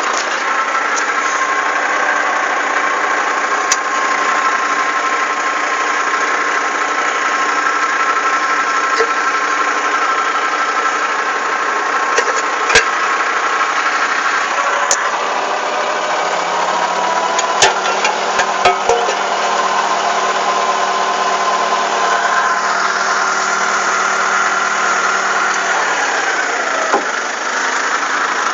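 Komatsu D30A bulldozer's diesel engine running steadily, its note changing about halfway through and again near the end. A few sharp metallic clicks come in the middle.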